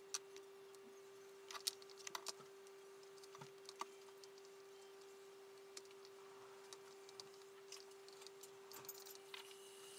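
Light clicks and crinkles of thin plastic covering film being handled, laid and pressed onto a model aircraft wing, over a faint steady hum. The clicks cluster in the first few seconds and thin out after.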